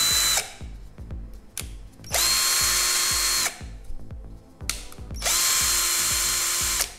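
Einhell TE-CD 18/2 18 V cordless drill-driver run off-load on its trigger, a steady motor whine. One run stops just after the start, then two more runs of about a second and a half each come about two seconds in and again about five seconds in, with light clicks in between.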